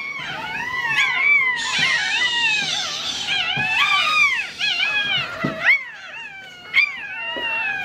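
Several newborn French bulldog puppies crying at once, high squealing cries that rise and fall and overlap without a break.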